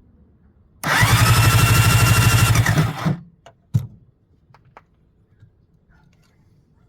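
Electric starter of a Yamaha SJ700 two-stroke jet ski engine cranking for about two seconds, its whine rising then holding steady, then stopping without the engine catching; a sharp click follows just under a second later.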